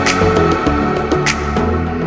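Background pop music in an instrumental passage: a steady bass line and held chords, with a sharp drum hit about every second and a quarter.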